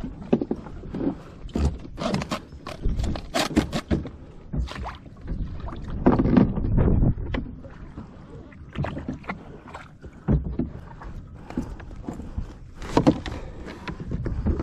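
Water splashing and sloshing around a plastic fishing kayak, with irregular knocks and bumps against the hull and gear as a fish is handled alongside.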